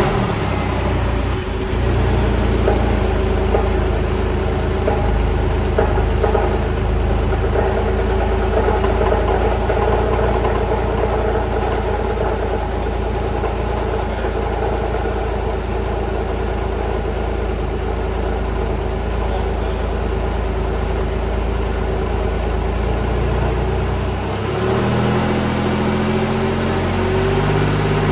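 Porsche 997 Carrera S flat-six idling steadily just after starting, through a Soul Performance exhaust with sport catalytic converters and vacuum-operated muffler-bypass valves. About four seconds from the end the low hum thins out and the engine note climbs slowly in pitch.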